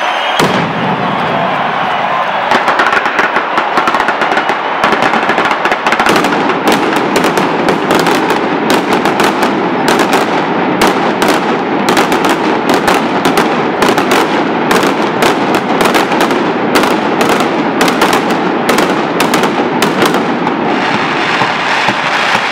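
Mascletà firecrackers going off: a dense rattling crackle starts suddenly, and from about six seconds in it is joined by a rapid barrage of separate sharp bangs that keeps building until near the end.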